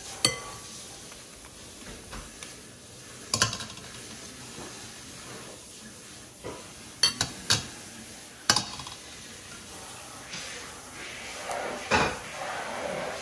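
Metal spoon and mesh strainer clinking against a glass mixing bowl and a stainless steel pot: about six sharp knocks a second or more apart, with a rustling near the end.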